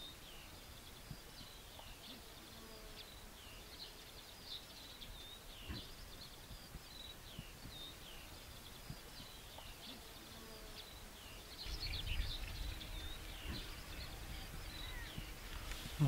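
Faint songbirds singing: a continuous run of short, high chirps and twitters. A low rumble comes in about twelve seconds in.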